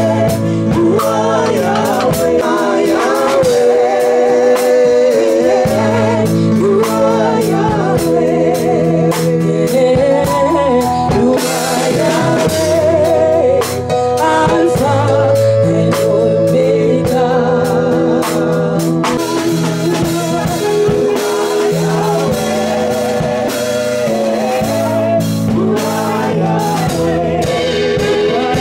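Gospel song: a singer's voice with vibrato over bass and a drum kit.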